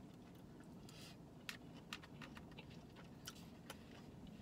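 Faint eating sounds in a quiet car cabin: a few light clicks and taps of a plastic fork in a foam takeout bowl, with chewing, over a low steady hum.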